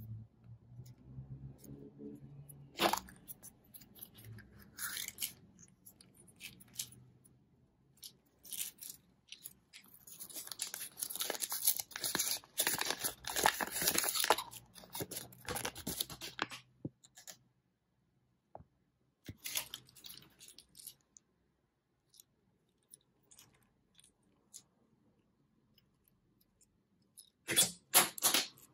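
Handling a Kinder Surprise toy: sharp plastic clicks from the yellow toy capsule early on, then several seconds of crinkling as the thin paper instruction leaflet is unfolded, and near the end loud clicks as small plastic toy parts are snapped together.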